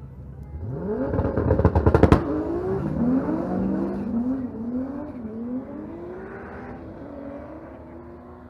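Drag cars launching from the start line: an engine revs up hard with a burst of loud crackling at the launch, then pulls away through several up-shifts, each a rising sweep that drops back, and fades as the cars run down the strip.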